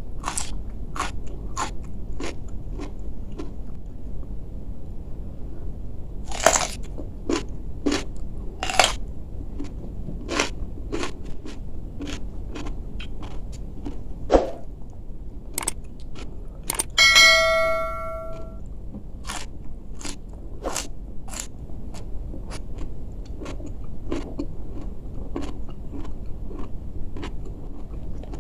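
Close-up chewing and crunching of a person eating by hand, biting into crisp raw vegetables, with irregular sharp crunches and mouth sounds. About seventeen seconds in, a short held tone with several pitches sounds for about a second and a half, louder than the eating.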